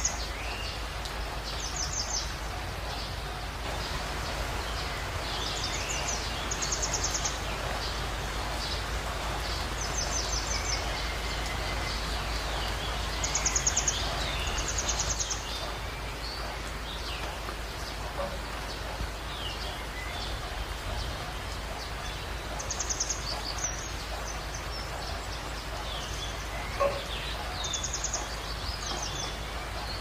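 Steady hiss of heavy rain with wild birds calling over it: short, high, rapidly pulsed trills every few seconds and scattered thin chirps.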